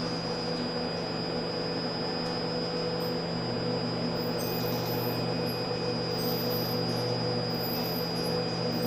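Steady electric hum with a thin high whine from a PUMA 560 robot arm's servo motors and drive electronics as the arm moves slowly. The low part of the hum grows a little louder about three and a half seconds in.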